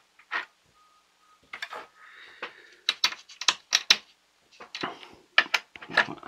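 Small plastic gears being pressed and fitted onto the shafts of a toy pinball machine's plastic gearbox: a run of sharp plastic clicks and taps with a brief scrape, the clicks coming thickest in the second half.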